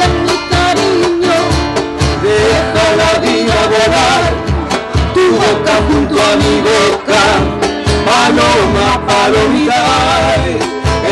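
Live Latin American band music: a nylon-string acoustic guitar played over a steady beat, with a sung melody line.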